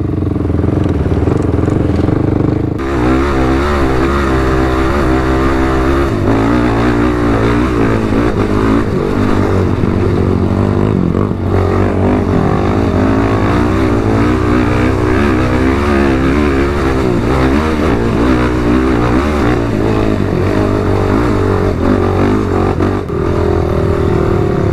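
ATV engine running under way, its note rising and falling as the throttle is worked. The engine picks up sharply about three seconds in.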